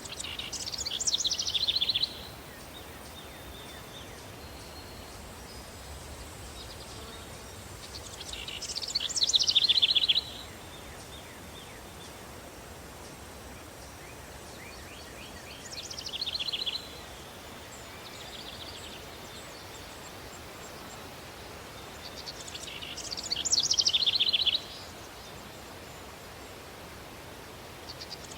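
A songbird repeating a short, rapid trilled song about every seven seconds. Each phrase falls in pitch, swells louder and stops abruptly, over a steady background of outdoor country ambience.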